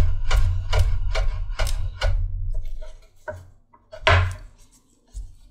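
Chef's knife chopping thin slices off a scrap of leather on a wooden cutting board, the blade knocking the board about two to three times a second, as a sharpness test. The chopping stops after about two and a half seconds, followed by a few light clicks and a single knock about four seconds in.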